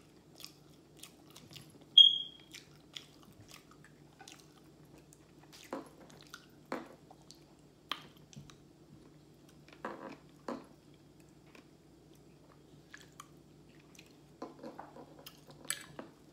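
Close-up mouth sounds of someone eating fried chicken and mashed potatoes: chewing, crunching of the breading and wet smacks, coming as scattered short bursts. A sharp, very brief high-pitched squeak about two seconds in is the loudest sound, over a faint steady low hum.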